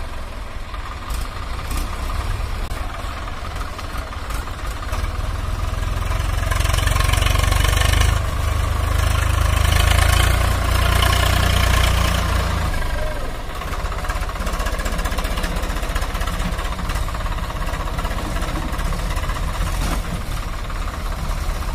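Swaraj 744 FE tractor's three-cylinder diesel engine working hard under a heavy load as it tries to haul a stuck, overloaded sugarcane trolley free on a tow rope. It gets louder towards the middle and eases off about 13 seconds in.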